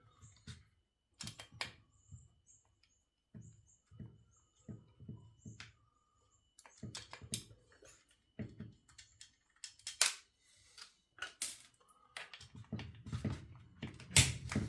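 Irregular light clicks and small metallic knocks of hand tools and small parts on a workbench, as the cover screws of an Echo 2511T-clone chainsaw are undone with a hex key and parts are set down.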